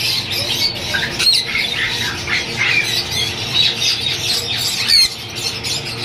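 Caged parrots squawking and chirping, many short shrill calls overlapping, over a steady low hum.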